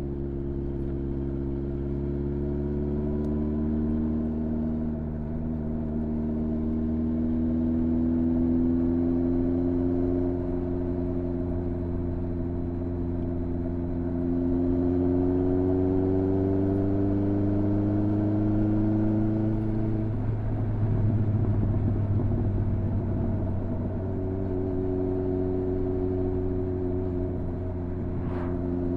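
Honda CB1300's inline-four engine running under way, its note climbing slowly through the first two-thirds, breaking off about two-thirds of the way in, then holding steady at a lower pitch.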